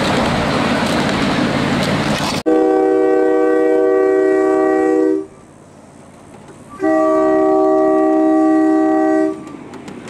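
Rolling rumble of riding a small-gauge train along its track, cut off suddenly. Then a train horn sounds two long blasts of a steady multi-note chord, each about two and a half seconds, with a short pause between.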